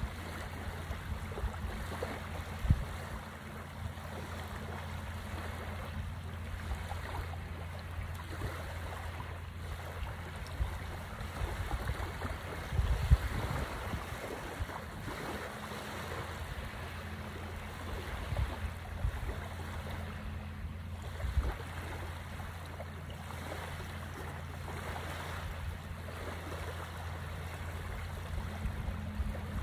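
Small sea waves lapping and washing on a sandy shore, with now and then a short low rumble of wind on the microphone.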